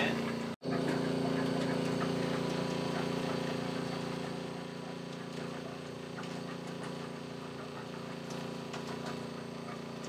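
Rainman high-output watermaker's AC electric high-pressure pump running under pressure while making fresh water: a steady motor hum with a faint hiss of water through the system. It drops out for an instant about half a second in.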